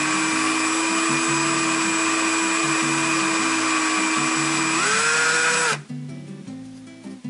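Cordless drill turning a half-inch countersink bit at low speed into an aluminium mounting plate: a steady motor whine with a cutting hiss. About five seconds in the pitch rises, and moments later the drill stops suddenly.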